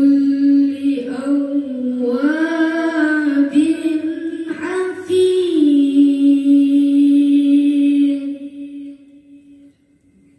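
A boy reciting the Quran in the melodic tilawah style into a microphone: one long held phrase with ornamented rises and turns in pitch, fading out as his breath runs out near the end.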